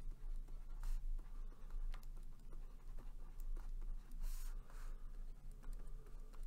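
Faint scratching and light taps of a pen handwriting words, in irregular strokes over a low steady hum.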